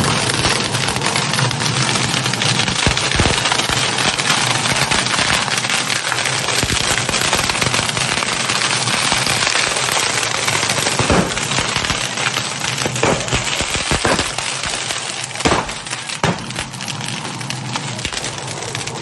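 Pyrotechnics crackling in a dense, continuous stream of small pops, with a few louder single pops in the second half.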